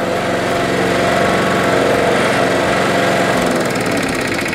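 Small gasoline lawn mower engine on a home-built remote-control mower running steadily, then dropping away near the end as it winds down.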